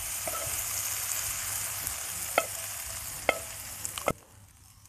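Onion-tomato masala sizzling in coconut oil in a frying pan as it is stirred and scraped out, with a few sharp clicks of the spoon against the pan. The sizzle cuts off suddenly about four seconds in.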